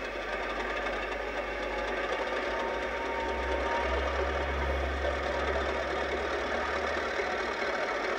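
English Electric 16-cylinder diesel engine of British Rail Class 50 locomotive 50044 running with a steady mechanical clatter as the locomotive moves past. A deep rumble swells about halfway through and eases near the end.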